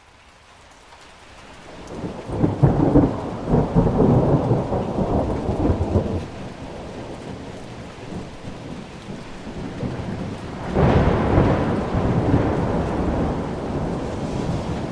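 Thunderstorm: steady rain that swells up at the start, with two rolls of thunder. A long rumble builds a couple of seconds in and dies away, then a second, more sudden one breaks about two-thirds through and trails off.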